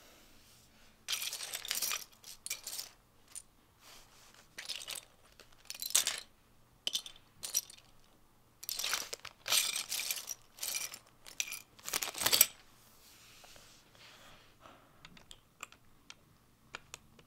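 Loose plastic Lego bricks clattering as a hand rummages through a pile of them, in repeated rattling bursts, the loudest about twelve seconds in. Over the last few seconds only light, scattered clicks of pieces are heard.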